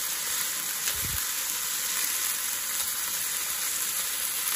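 Chicken wings frying in a nonstick pan: a steady sizzling hiss, with the pieces being turned with chopsticks.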